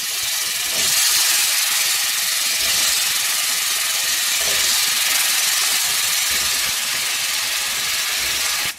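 Chunks of brinjal (eggplant) frying in hot oil in a pan: a steady sizzle that gets a little louder about a second in.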